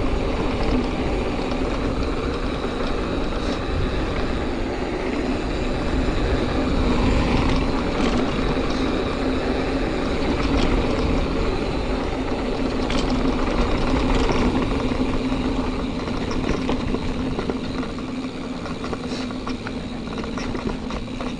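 Mountain bike riding over a dirt trail: a steady rolling hum from the knobby 29-inch tyres and wind rush on the helmet-mounted action camera, with a few scattered sharp clicks and rattles from the bike.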